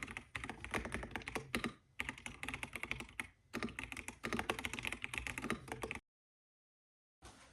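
Fast typing on a computer keyboard: dense runs of key clicks broken by two short pauses, stopping abruptly about six seconds in.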